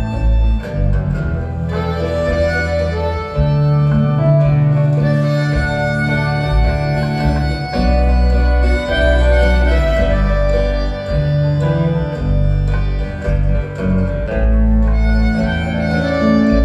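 Live rock band playing an instrumental passage: guitar and harmonica over heavy, sustained bass notes that change every second or two.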